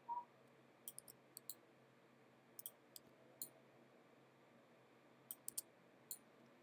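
Faint, scattered clicks of a computer mouse in use, about a dozen light clicks, some in quick pairs, over quiet room hiss.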